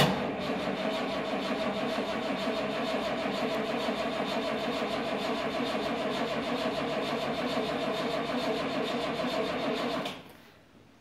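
Mercedes-Benz 300SL Roadster's fuel-injected 3.0-litre straight-six fires up abruptly and runs at a steady idle, with an even pulse from its firing strokes, then shuts off and dies away about ten seconds in.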